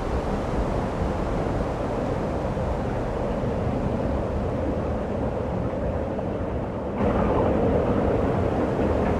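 Steady rushing wind of a snowstorm, a deep even roar with no distinct gusts. It jumps abruptly louder about seven seconds in.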